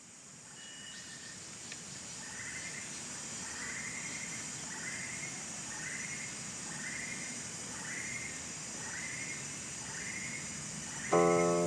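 Tropical rainforest ambience fading in: a steady high drone of insects with a short rising call repeated about every 0.7 s. Near the end a guqin string is plucked, a single note ringing over the forest sound.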